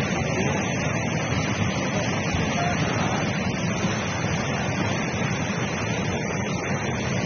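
Muddy floodwater rushing down a concrete channel in a steady, continuous noise, with stones carried and tumbling along in the current.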